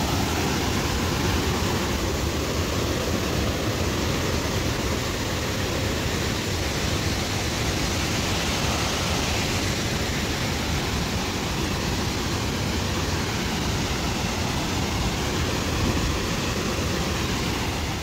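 Waterfall cascades rushing steadily: a dense, even hiss of falling water with no breaks.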